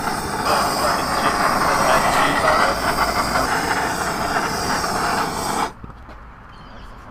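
Blowtorch flame rushing with a steady loud hiss. It shuts off suddenly near the end.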